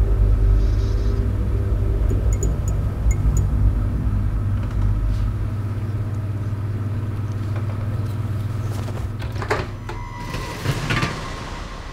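A deep, steady low rumbling drone that thins out from about halfway in. Near the end come a few short crackling rustles.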